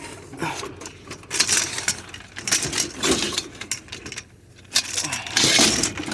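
Scrap metal pieces being handled and set down: irregular clatter and rustling with light metallic clinks, a brief lull about four seconds in, then a louder stretch of clatter near the end.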